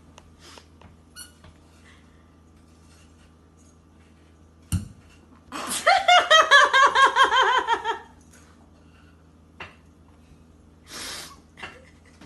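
A person laughing in a quick run of short "ha" pulses that fall in pitch, lasting about two and a half seconds, halfway through. A sharp thump comes just before.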